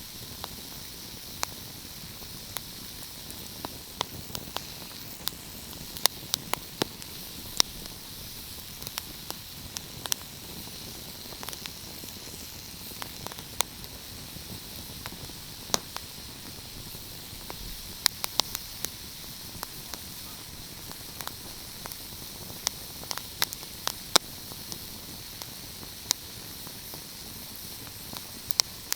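Fire crackling: a steady hiss under irregular sharp pops and snaps, a few of them louder than the rest.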